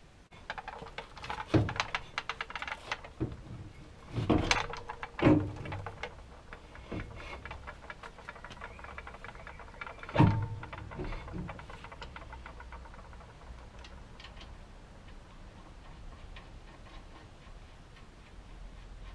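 Ratchet wrench clicking in quick runs as a nut on the front suspension is worked, broken by several sharp metallic knocks of tools, then fainter occasional ticks.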